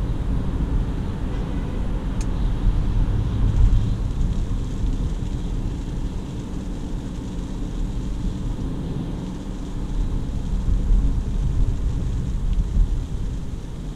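Steady low rumble of road, tyre and engine noise heard inside the cabin of a DongFeng Forthing T5 EVO cruising at about 60 km/h on a wet road, swelling a little twice.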